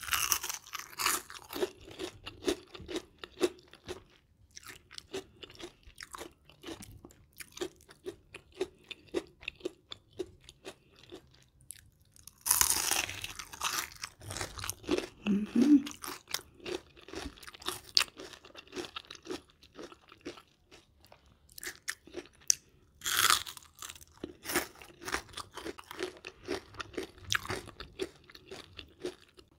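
Close-up crunching and chewing of crispy battered onion rings, very crunchy: loud bites at the start, about 12 seconds in and about 23 seconds in, with steady crunchy chewing in between.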